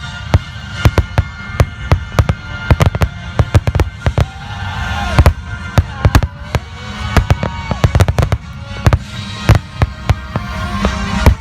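Aerial fireworks display: many sharp bangs in quick, irregular succession, several a second, with held tones running underneath.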